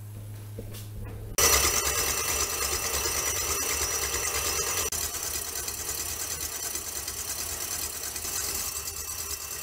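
KitchenAid stand mixer switching on about a second and a half in and running steadily, its wire whisk whipping egg whites to a foam.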